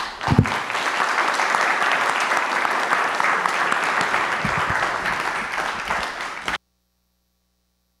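Audience applauding, a steady round of clapping that cuts off abruptly about six and a half seconds in.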